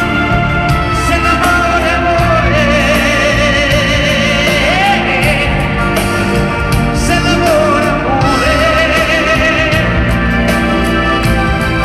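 Live pop-rock band music from a concert stage, recorded from among the crowd, with a wavering lead melody carried over the band with no clear sung words.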